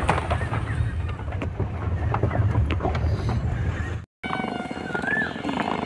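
Car's road and engine rumble inside the cabin, steady and heavy, with scattered light clicks and rattles. About four seconds in the sound cuts off and a quieter hum takes over, with a short warbling chirp heard twice.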